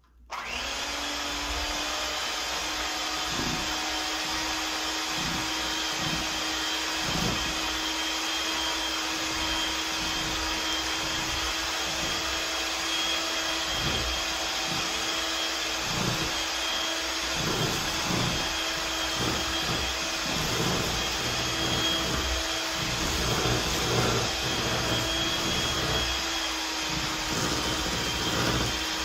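Electric hand mixer switching on and running steadily, its beaters working butter into flour and dry ingredients until the mix goes sandy, with irregular knocks of the beaters against the stainless steel bowl.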